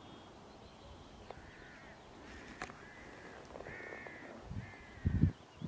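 Arctic terns giving harsh, grating calls, four or five in a row. There is a sharp click about halfway through, and low thumps near the end are the loudest sound.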